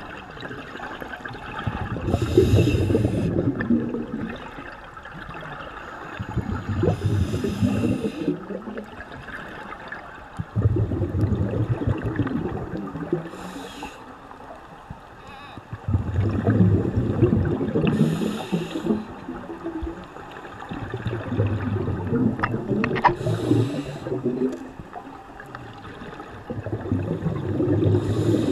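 Scuba diver breathing through a regulator underwater: each breath is a short hiss on the inhale, then a louder bubbling rumble of exhaled air. There is one breath about every five seconds, six in all.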